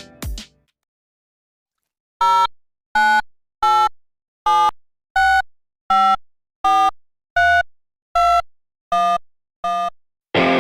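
A string of about eleven short synthesized beeping notes at changing pitches, roughly one every 0.7 seconds, each cut off cleanly, after a second or so of silence.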